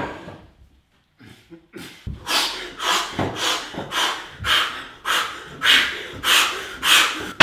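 A person breathing hard in quick, even puffs, about two a second, starting about two seconds in.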